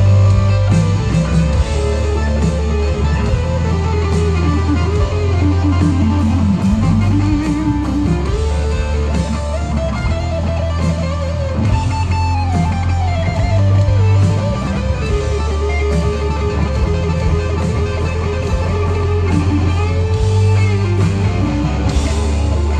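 Live rock band playing: a semi-hollow electric guitar plays a lead line with bends that glide up and down over steady bass and drums.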